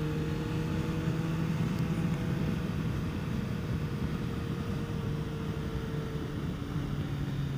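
Kawasaki Concours 14's inline-four engine running steadily at a cruising pace, with wind noise rushing over the microphone. The engine note dips slightly near the end.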